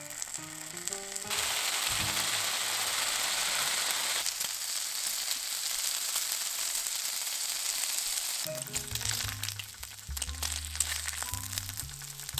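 Bacon strips frying in a frying pan. A loud, steady sizzle starts about a second in, and after about eight seconds it eases into lighter, scattered crackling.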